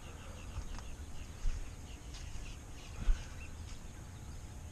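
A bird chirping in a quick series of short, high notes, about four or five a second, faint over outdoor background noise, with a couple of soft knocks.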